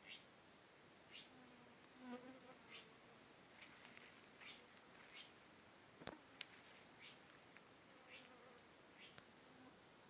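Faint insect chorus: high, steady buzzing tones with short chirps repeating about once a second. A single sharp click comes about six seconds in.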